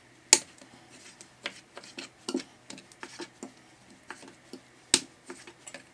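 Chef's knife cutting a raw catfish fillet on a plastic cutting board: scattered soft taps and scrapes of the blade, with two sharper knocks, one just after the start and one about five seconds in.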